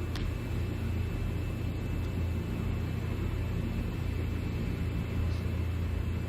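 Steady low background rumble and hum, with a faint click just after the start.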